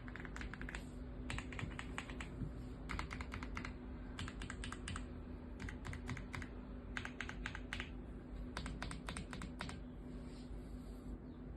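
AULA F75 mechanical keyboard with pre-lubed linear Reaper switches being typed on: bursts of rapid keystrokes, each burst lasting about half a second to a second, with short pauses between them.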